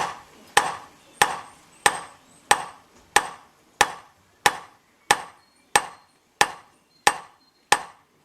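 A peening hammer striking a scythe blade on a FUX tall peening anvil, cold-working a row just back from the edge. The blows are steady and even, about three every two seconds, each with a short ring.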